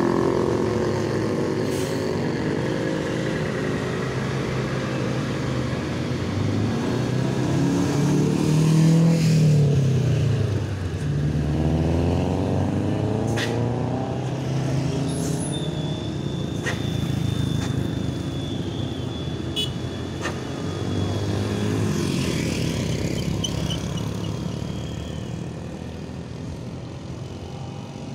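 Road traffic: heavy vehicle engines running as they pass, one engine note rising and then dropping in pitch as it goes by about nine to ten seconds in. There are a few short sharp clicks in the middle.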